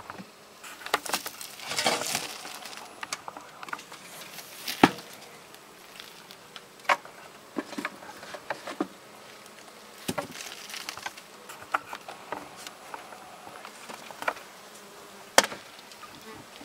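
Honeybees buzzing over an open hive. The colony's hum is really loud, which the beekeeper takes as a probable sign that it is queenless. Over the hum come scrapes, clicks and knocks of a hive tool and wooden frames being pried loose and lifted, with a sharp knock about five seconds in and another near the end.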